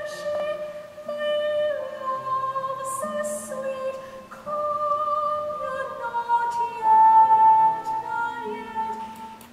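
Slow music between narration: a melody of long held high notes over a quieter low accompaniment, the notes stepping up in pitch and the loudest one held about seven seconds in, fading out near the end.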